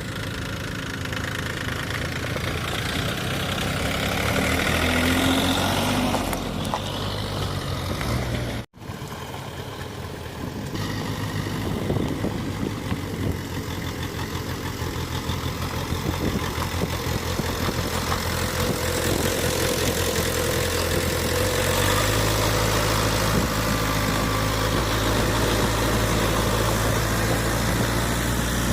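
Diesel engines of a backhoe loader and farm tractors running steadily, with a sudden brief gap about nine seconds in and a heavier low rumble from about twenty-two seconds on.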